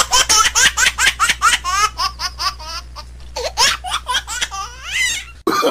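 A person laughing in a rapid run of high-pitched giggles, with a short lull about halfway through, cut off abruptly near the end.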